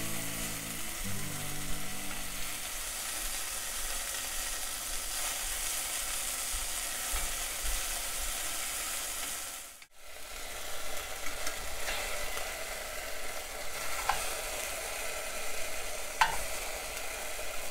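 Flour-dusted beef cubes sizzling steadily as they brown in olive oil in an enameled Dutch oven, with a few light clicks of metal tongs as the pieces are turned. The sizzle cuts out for a moment a little over halfway through, then resumes.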